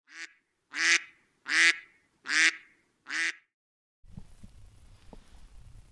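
A duck quacking five times in quick succession, evenly spaced, as an intro sound effect over silence. From about four seconds there is faint outdoor background noise.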